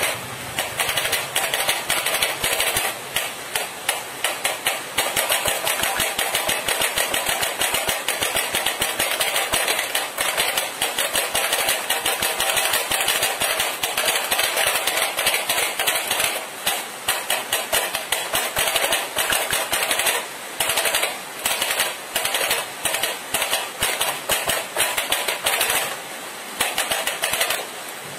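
Fast hand drumming on a flat box on a tabletop: rapid, continuous rolls of sharp taps, broken by a few brief pauses.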